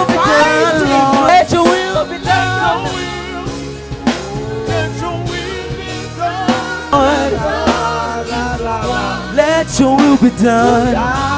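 Live worship song: sung melody with a wavering voice over a band with a steady drum beat.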